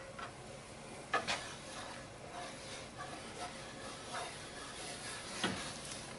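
Whisk stirring flour into melted butter in a nonstick frying pan to start a roux: soft scraping with a faint sizzle, and a couple of light knocks, one about a second in and one near the end.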